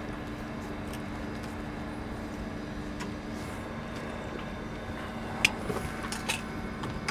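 Steady low hum of background noise, with a few sharp light clicks and taps from hand tools and wire handling near the end, as a heat-shrink connector is crimped and the wire is routed.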